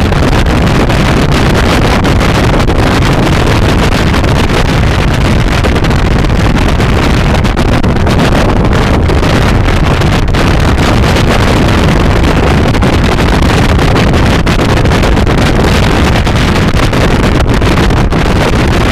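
Loud, steady wind rush buffeting the microphone of a scooter riding at speed, a dense low rumble that drowns out any engine sound.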